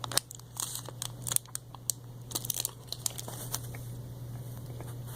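Snack package wrapper crinkling and crackling as it is handled, in scattered bursts over the first three and a half seconds, then quieter, with a steady low hum underneath.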